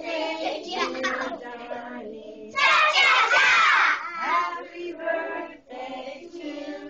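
A group of young children singing together, loudest for about a second and a half near the middle.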